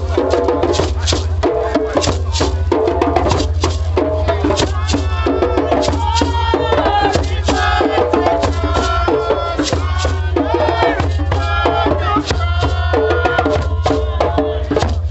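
Hand percussion keeping a steady beat, with voices singing or chanting over it from about four seconds in, above a steady low hum.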